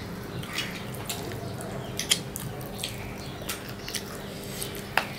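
Wet mouth and finger sounds of people eating curry by hand: scattered lip smacks and sucking clicks, the sharpest about two seconds in and just before the end, over a steady low hum.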